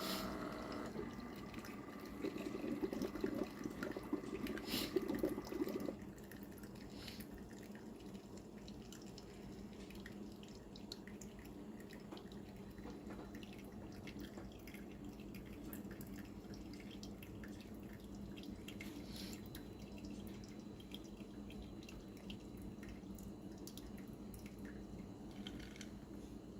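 Ninja DualBrew coffee maker brewing over ice: hot coffee streams into the carafe for the first few seconds, then settles to a quieter steady dripping with a low hum.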